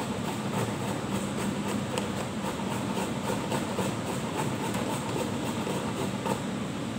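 Vegetable being grated on a handheld metal grater: quick rasping strokes repeating a few times a second, over a steady background hum.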